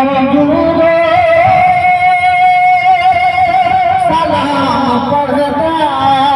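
A man singing a naat into a microphone, holding one long note with a slight waver, then starting a new phrase about four seconds in.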